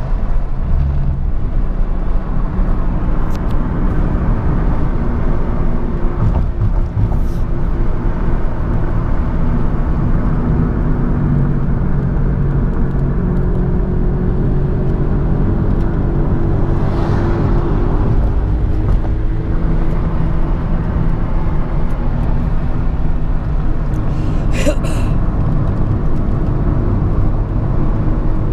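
Car engine and tyre noise heard from inside the cabin while driving, steady throughout, with the engine note slowly shifting in pitch now and then.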